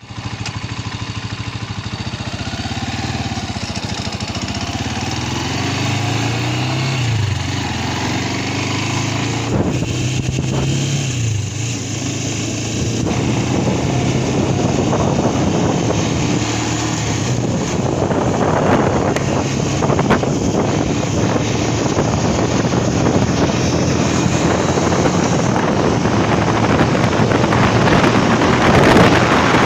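Spark SP200R-28 motorcycle engine running under way, its pitch rising and falling with throttle and gear changes over the first dozen seconds. Wind rushing over the microphone then grows steadily louder and mostly covers the engine.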